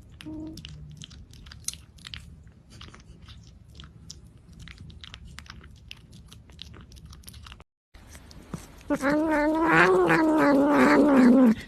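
A cat crunching dry food: many small irregular crunches and clicks. Later a loud, wavering, drawn-out cat vocal sound made while eating, lasting about three seconds and cutting off near the end.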